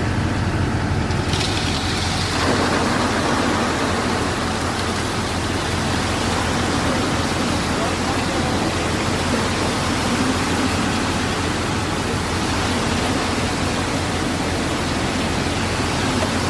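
Transit concrete mixer truck unloading: the engine running with a steady low hum under the rush of the turning drum and concrete pouring out. The rush grows louder about two seconds in.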